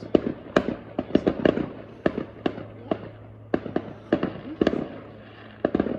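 Fireworks going off: an irregular run of sharp bangs and cracks, several a second, some followed by a short echoing tail.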